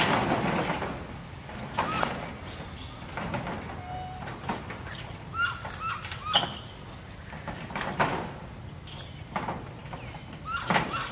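Macaques moving about on a corrugated metal roof: scattered knocks and rattles, and a few short rising chirping calls. A steady high insect drone runs underneath.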